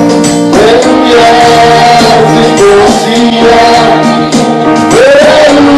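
Gospel song in siSwati: voices singing a repeated line over instrumental backing, with tambourine-like percussion.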